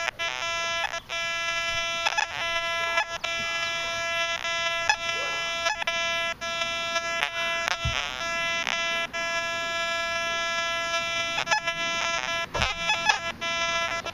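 Metal detector with a 6x10 double-D coil giving a near-continuous buzzing tone with short breaks as it sweeps over iron-littered ground, its display reading iron. Two dull knocks come near the middle and near the end.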